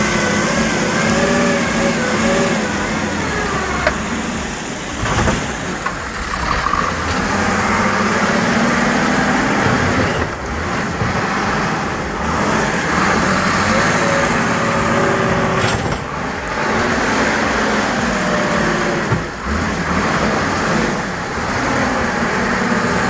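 Motor vehicle engine running under load, its pitch rising and falling as it changes speed.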